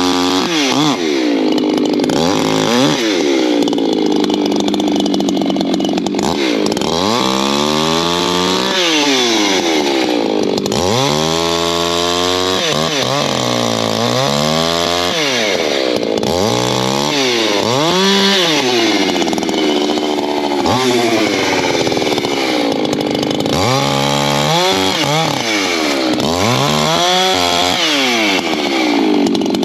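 Echo two-stroke chainsaw bucking oak logs into firewood rounds. The engine's pitch climbs at full throttle and sags under load in the cut, again and again every couple of seconds.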